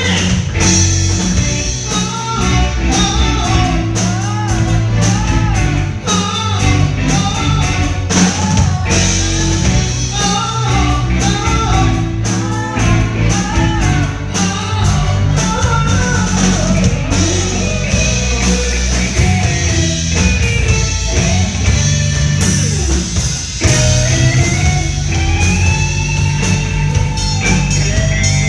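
Pop-rock band playing a song, a singer carrying the melody over drum kit, bass guitar, guitar and keyboard with a steady beat; near the end the voice holds one long note.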